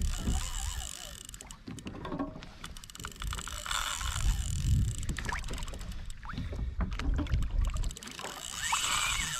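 Wind buffeting the microphone and water slapping against a kayak hull, with scattered small clicks and knocks from the fishing gear as the fish is fought.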